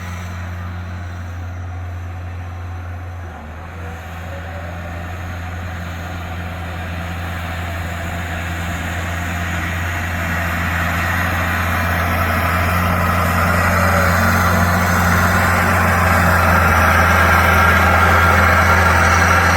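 Diesel engine of a Rippa NDI680 skid steer running steadily. It dips briefly a little over three seconds in, then grows gradually louder.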